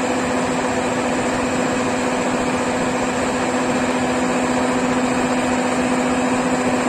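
Rice combine harvester's engine running steadily, a constant hum with a steady tone and no change in speed.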